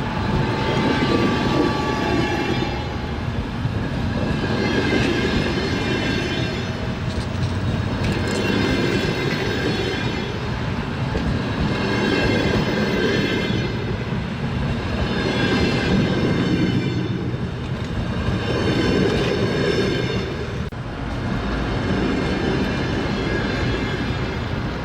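Train wheels clattering over the rails, a steady rhythmic clickety-clack. The sound swells and fades in a repeating cycle about every three to four seconds.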